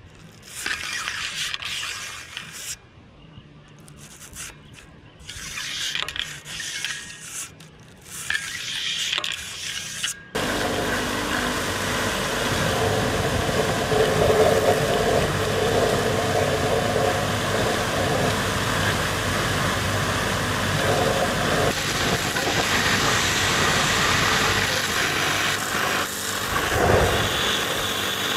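Electric piston-ring filer grinding ring ends in short, irregular bursts for about ten seconds, as the rings are gapped. Then the sound changes abruptly to a loud, steady rushing noise that runs on to the end.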